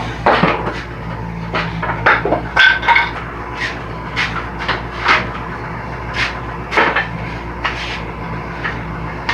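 Irregular series of light knocks and clicks, like wooden pieces and a saw sled being handled and set down on a workshop table saw.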